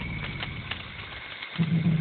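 Cicada killer wasp buzzing in flight close to the microphone, a low wavering hum that fades out briefly about one and a half seconds in and then returns louder.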